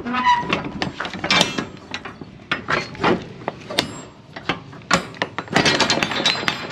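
Rear swing door of a Stoughton semi trailer being unlatched and opened: the metal lock-rod handle and latches clank and rattle in a string of sharp knocks, most thickly near the end as the door swings open.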